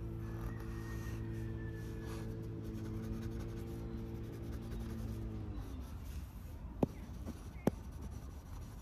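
Clutch pencil's graphite lead scratching on drawing paper as lines are sketched. Underneath runs a low, steady musical drone that bends downward and stops about five and a half seconds in, and two sharp clicks come near the end.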